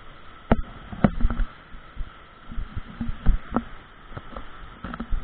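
Footsteps knocking on the wooden plank deck of a swinging suspension bridge, about two steps a second and uneven, over the steady rush of river rapids below.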